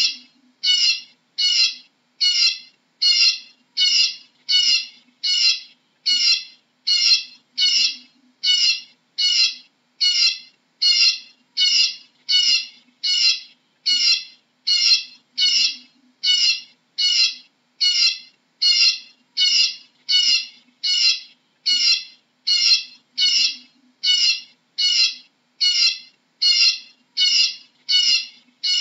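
Eurasian bullfinch calling: short, high call notes repeated at a very even pace, about three every two seconds.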